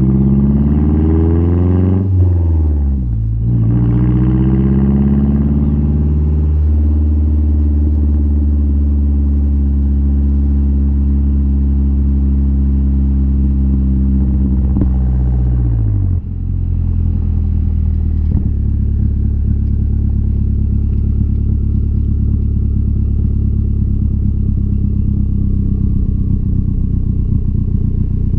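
Mazdaspeed 3's turbocharged 2.3-litre four-cylinder through a single-exit axle-back exhaust, pulling up through the revs with sharp drops in pitch at gear changes about two and six seconds in. It then holds a steady note, falls in pitch about sixteen seconds in, and settles into a steady lower drone.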